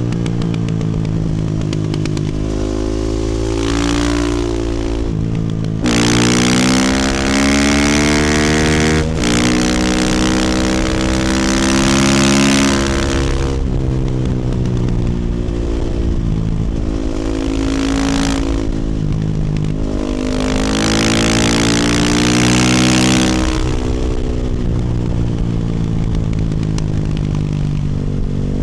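2018 Husqvarna FE450 supermoto's single-cylinder four-stroke engine through an Akrapovic exhaust, revving up through the gears and backing off again and again. There are hard pulls about six seconds in and again past twenty seconds, with a short break in the sound near nine seconds like a quick shift.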